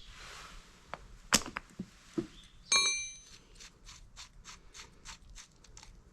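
Metal parts and hand tools being handled: a few knocks and a sharp clink, then a metal piece that rings briefly when struck or set down, followed by a run of light, evenly spaced ticks about three a second.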